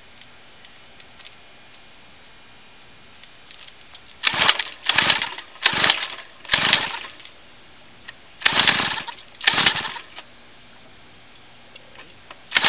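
Recoil pull-starter of a 49cc two-stroke pocket-bike engine yanked six times, a short whirring rasp on each pull: four quick pulls, a pause, then two more, with the engine not catching.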